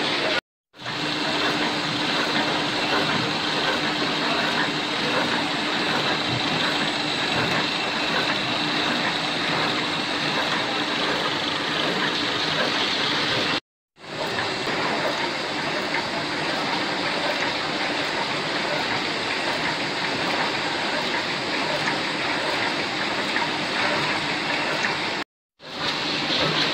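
Sticker cutting machine running steadily, a continuous dense mechanical whir of rollers, motor and cutter with a faint steady hum under it. The sound cuts out abruptly three times for a moment, about half a second in, near the middle and near the end.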